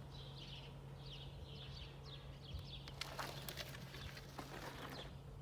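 Birds chirping in short repeated calls over a steady low hum, with a brief run of clicks and rattles about three seconds in.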